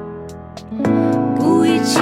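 Slow Mandarin pop ballad music. A held chord fades away, then the fuller arrangement comes back in, louder, just under a second in.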